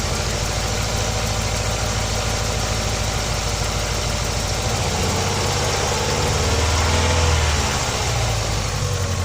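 Opel Vectra B engine idling, with a slight rise in revs about six seconds in that settles back again.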